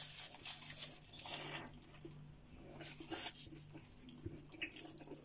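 Soft chewing of a mouthful of kebab roll with fresh lettuce: a few quiet crunches and mouth clicks.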